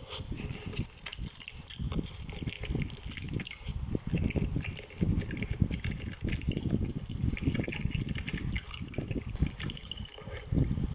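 A person eating close to the microphone: chewing and mouth sounds that come quickly and irregularly throughout.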